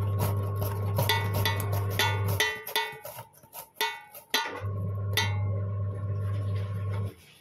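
A low, steady electric hum that runs for about two and a half seconds, stops, then runs again for about two and a half seconds. Ringing metallic clinks sound throughout.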